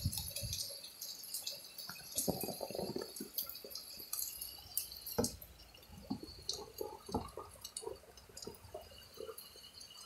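Faint, scattered water drips and small splashes from a wet turtle being handled over a plastic tub.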